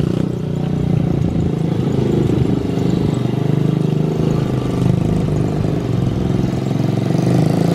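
Mini bike's small engine running as it is ridden slowly around, its note wavering a little up and down.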